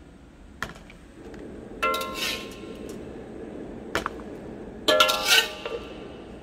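A slotted metal spatula scraping and knocking against an aluminium wok while lifting out pieces of fried omelette, with two scrapes that make the wok ring briefly, about two and five seconds in. A few light clicks come between the scrapes.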